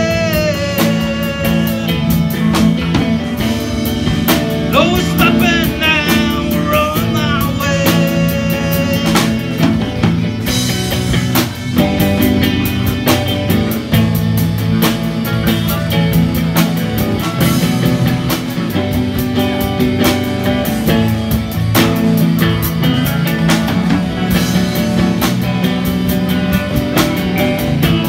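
Live band playing rock music: drum kit, electric guitars and bass, with a hand drum and a voice singing.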